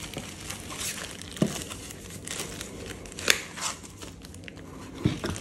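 Crinkling and rustling of a thin white protective bag as it is pulled off a speaker, with scattered crackles and a sharper click about three seconds in.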